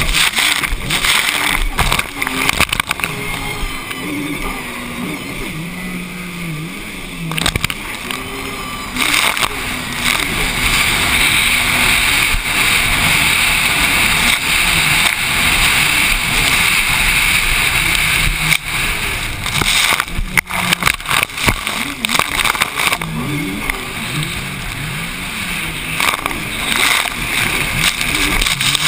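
Racing jet ski engine running hard, its pitch rising and falling with the throttle, over a rush of water and spray, with a few sharp knocks as the hull hits the chop. Heard from a helmet-mounted camera.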